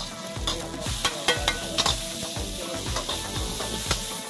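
Chopped garlic sizzling in hot oil in a wok while a metal ladle stirs and clinks against the pan. Near the end, diced vegetables are tossed in the wok as they fry.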